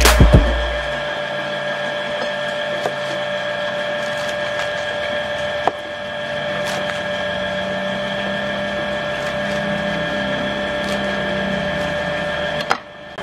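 A kitchen knife chopping leafy greens on a plastic cutting board: scattered soft cuts and taps over a steady background hum.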